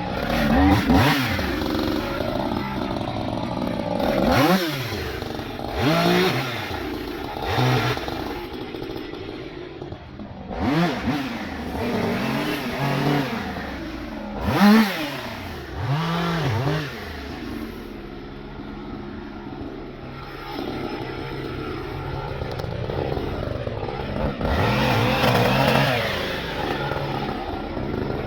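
Two-stroke chainsaw idling, its throttle blipped again and again so that the engine revs up and falls back each time, then starting to rev up right at the end.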